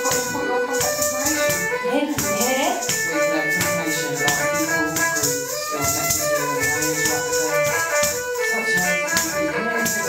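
Jingling of a dancer's ankle bells (ghungroo) with her footwork and turns, over a bowed string instrument playing a melody with gliding notes.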